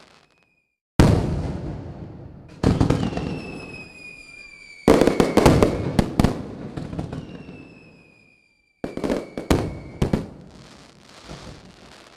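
Fireworks display: heavy shell bursts about a second in, near three seconds and near five seconds, each trailing off in a long fading rumble, followed by a quick string of sharp cracks. A whistling tone falls slowly in pitch twice, and another cluster of cracks comes near nine to ten seconds.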